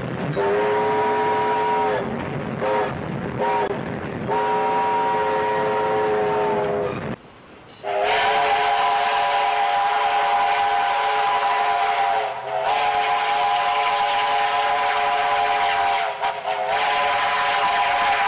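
Multi-chime steam train whistle sounding a chord: one long blast, two short toots and another long blast. After a short break it blows long drawn-out blasts over a steady hiss, interrupted briefly twice.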